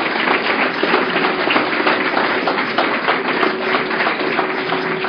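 Audience applauding, a dense and steady patter of many hands clapping.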